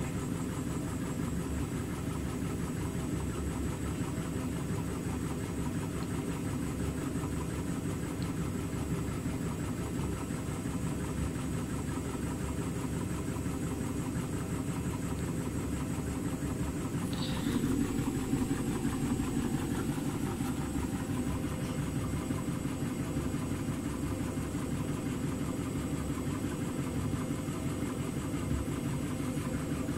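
Indesit front-loading washing machine running, its motor turning a drum full of foamy laundry with a steady hum; it is in a suds lock, with too much foam in the drum keeping it from spinning up properly. The sound grows briefly louder just past halfway.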